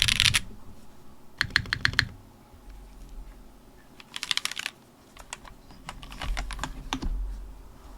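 Typing on a custom TGR Jane V2 ME mechanical keyboard with Cherry MX Black linear switches and PBT Cherry-profile keycaps, in short bursts of keystrokes that thin out to scattered single presses. A low desk resonance sits under some of the strokes.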